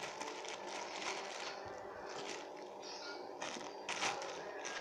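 Squishy toy's packaging being opened by hand, rustling and crinkling in a series of irregular bursts.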